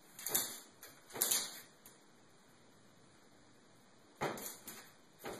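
Bearded dragon's claws scratching and scrabbling against mirror glass in a few short, sudden bouts.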